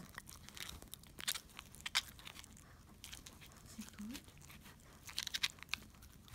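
A dog gnawing a bone, with irregular bursts of sharp crunches and clicks. The loudest bites come about two seconds in and again around five seconds in.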